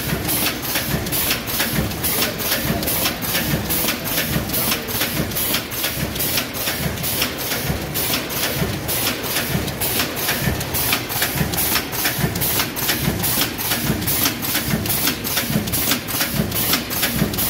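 Automatic VFFS snack bagging machine with multihead weigher running: a steady mechanical hum under fast, even clicking at about four a second.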